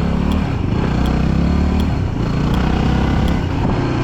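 Adventure motorcycle engine running at low revs while being ridden. Its pitch shifts about half a second in and again about two seconds in.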